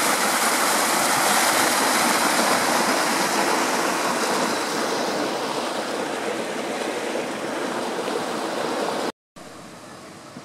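Steaming thermal spring water rushing down a stone-lined travertine channel: a loud, steady rush that eases off somewhat after about five seconds and cuts off abruptly near the end, leaving only a faint steady background.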